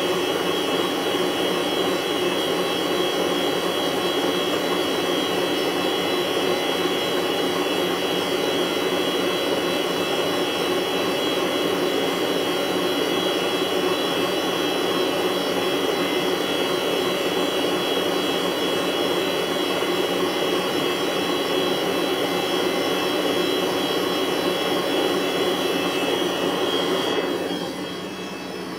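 Electric hand mixer running steadily, its beaters whipping cream. The motor is switched off near the end.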